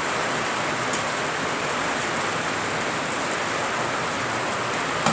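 Egg mixture and oil sizzling in a frying pan, a steady hiss.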